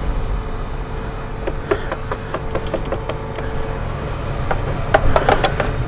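Motorcycle engine idling as a steady low rumble, with a steady hum that stops about two-thirds of the way through and a cluster of clicks and knocks near the end.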